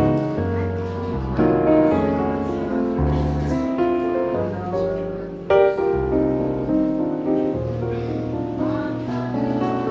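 Smooth jazz piano music: piano chords over a walking bass line, with a loud struck chord about five and a half seconds in.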